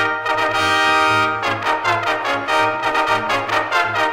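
Trumpet fanfare: a held note, then a run of quick short notes, then held notes again.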